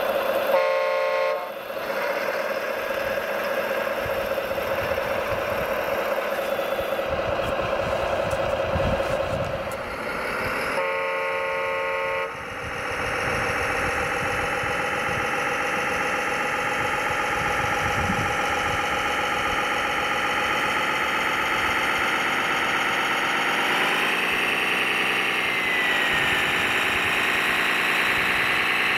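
Radio-controlled model construction vehicles running with a steady whine of electric motors and gears, which dips and rises in pitch about 24 seconds in. A horn sounds twice, each blast about a second long, once at the start and again about 11 seconds in.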